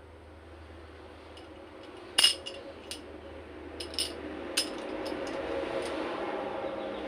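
Sharp metallic clinks and clicks of small parts or tools being handled, the loudest about two seconds in, over a steady hum that grows louder from about three seconds in.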